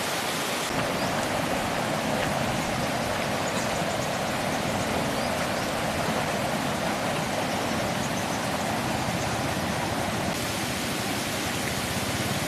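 Flash-flood water rushing and churning: a loud, steady noise of fast-flowing water.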